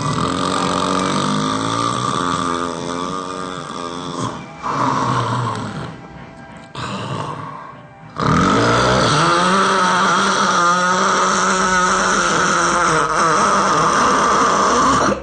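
Loud, exaggerated snoring in long, drawn-out pitched breaths that waver up and down. It dips quieter about six to eight seconds in, then returns loud and held.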